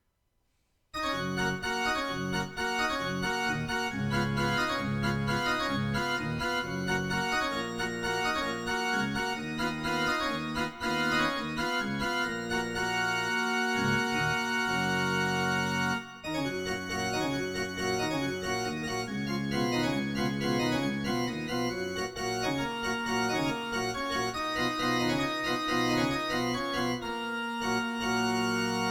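Yamaha PSR-E203 portable keyboard playing on an organ-style voice: quick runs of notes over held chords. It comes in suddenly about a second in and breaks off briefly just past halfway.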